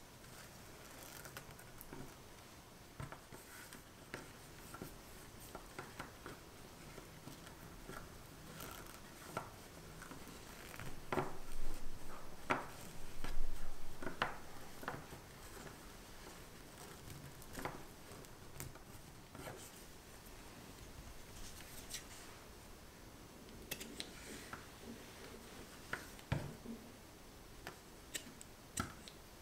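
Satin ribbon rustling and sliding against itself and a braided puff-pastry piece as it is tied into a bow, with small scattered clicks and a louder spell of rustling in the middle as the knot is worked. Near the end, scissors snip the ribbon ends a couple of times.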